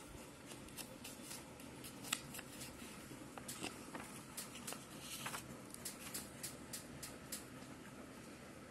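Pages of a paper textbook being turned and flattened by hand: a scatter of faint paper rustles and soft clicks, loudest about two seconds in.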